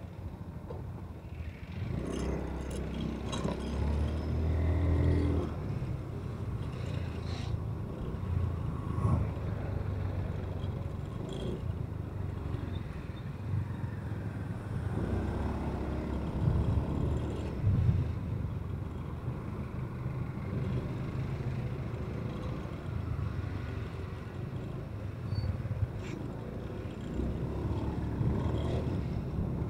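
Low, steady rumble of a running motor vehicle and road noise, swelling louder a few times.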